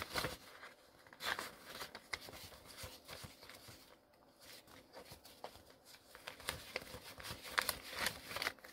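Paper banknotes being counted by hand: a stack of bills crinkling and flicking with irregular short snaps, a few louder ones about a second in and near the end.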